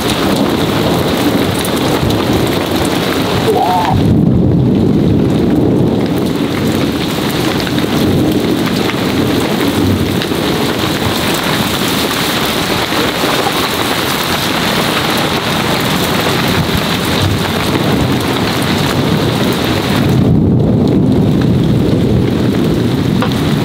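Heavy rain pouring steadily in a thunderstorm, with low rolls of thunder swelling about four seconds in and again about twenty seconds in.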